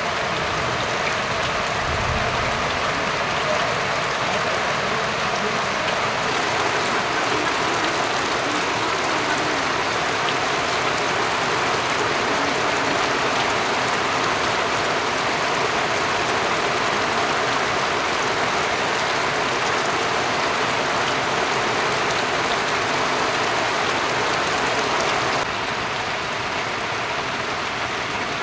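Steady heavy rain falling on a packed-earth yard and pouring off the edge of a thatched roof.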